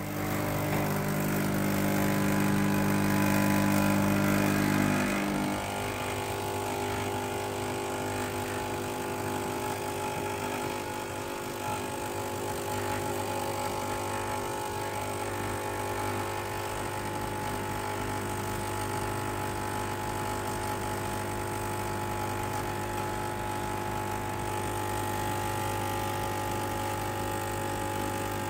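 Grimac espresso machine's pump running through an espresso shot, a steady mechanical hum. It is louder for about the first five seconds, then settles to a slightly lower, even level.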